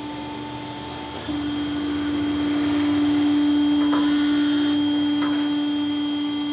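Resurfacing machine running steadily with a constant hum, facing a Maruti 800 cylinder head to true a warped deck. The hum grows louder about a second in, and a short hiss comes about four seconds in.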